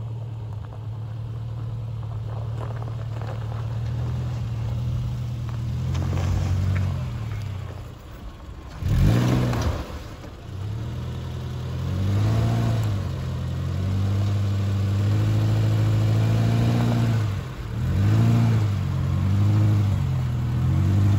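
Subaru Forester's flat-four boxer engine pulling at low speed over dirt mounds, its revs rising and falling again and again as the wheels climb each bump. A short loud burst of noise comes about nine seconds in.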